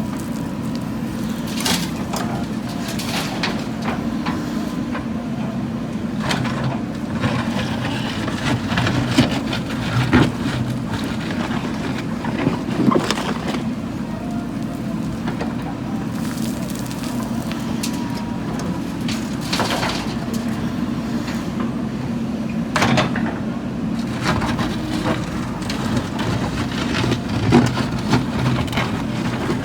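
JCB 3DX backhoe loader's diesel engine running steadily under load, with repeated crunching and clattering as the bucket works soil and tips it into a dump truck.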